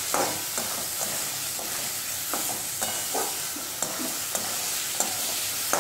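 Wooden spatula stirring and scraping boiled yellow peas and fried masala around a metal kadai, in irregular strokes about every half second, over a steady sizzle of frying.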